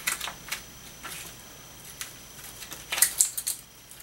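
Metal keys clicking and jingling at a steel tool cabinet's drawer lock as they are handled: a few scattered clicks, with a quick cluster about three seconds in.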